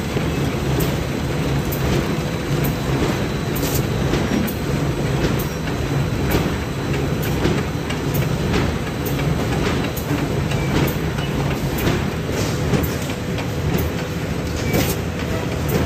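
Automatic folder-gluer for corrugated cardboard boxes running: a steady mechanical rumble of belts and rollers with repeated sharp clacks, roughly one or two a second.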